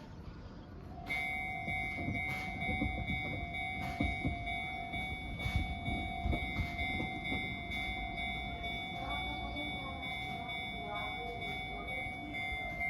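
Japanese railway level-crossing warning alarm starts about a second in and keeps ringing as one steady pitched electronic tone, over a constant low rumble.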